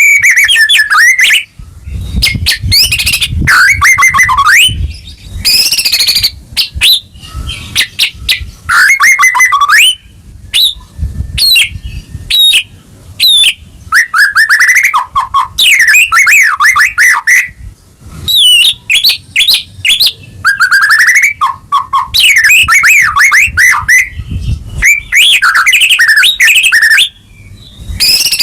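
White-rumped shama (murai batu) singing loud, varied song in phrases of a second or two with short breaks between. The phrases are made of rising and falling whistled notes and rapid trills: the full, excited 'gacor' song used to provoke other shamas into singing.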